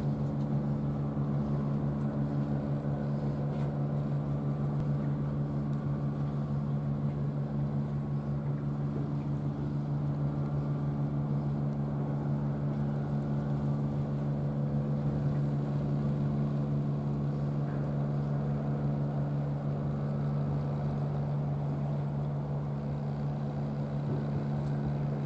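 A steady engine drone at a constant pitch and level, with a low hum and several fainter overtones.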